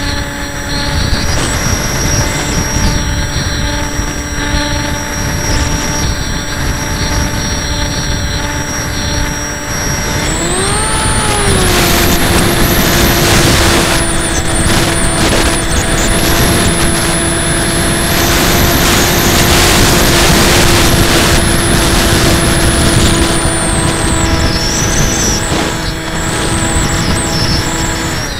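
Electric motor and propeller of a HobbyKing Breeze foam RC plane, heard from its onboard camera in flight: a steady whine that rises in pitch about ten seconds in as the throttle goes up, then holds at the higher pitch. Wind rushing over the airframe grows louder in the second half.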